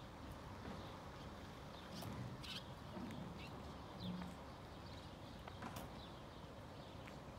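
Faint outdoor background with a low rumble and a few scattered sharp taps, footsteps of someone walking on an asphalt road.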